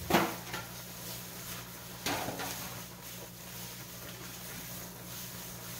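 Two short knocks in a kitchen, about two seconds apart, over a steady low hum.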